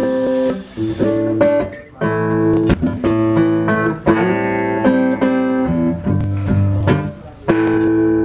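Acoustic guitar strumming chords that change about once a second. About seven and a half seconds in, a chord is struck and left to ring.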